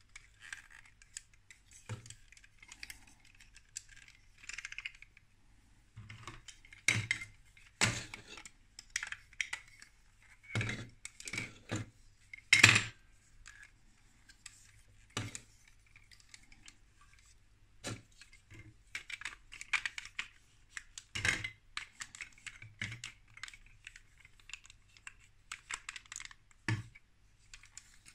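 Plastic Lego Duplo bricks clicking and knocking as they are handled and pressed together. The clicks come irregularly, the loudest about halfway through.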